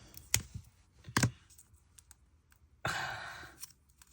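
Scissor blades clicking shut twice, about a second apart, on a foil card-pack wrapper they are failing to cut. Then a breathy sigh about three seconds in.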